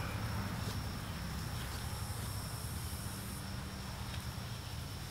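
Outdoor garden ambience: a steady, thin high insect drone over a low steady hum, with faint rustles of hands pressing plants into potting soil in a wooden barrel planter.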